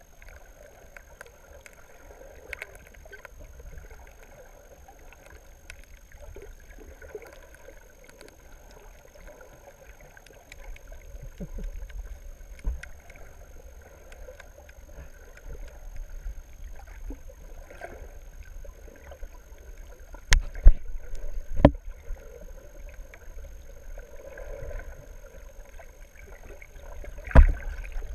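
Muffled underwater sound picked up by a submerged camera: a low rumble of water movement with scattered small clicks and a few sharp knocks, the loudest about 20 seconds in and near the end.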